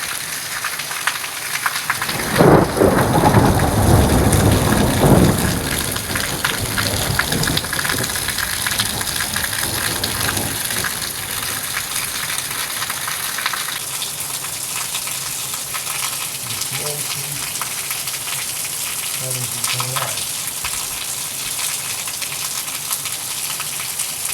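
Heavy rain pouring down steadily, with water running off the roof. A deep rumble of thunder comes from about two to five seconds in and is the loudest part.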